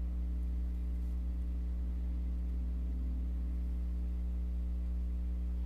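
A steady low background hum that holds one level throughout, with no distinct handling sounds heard over it.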